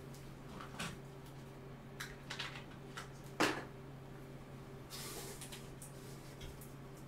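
Faint scattered clicks and knocks of small objects being handled, the loudest about three and a half seconds in, over a steady low hum.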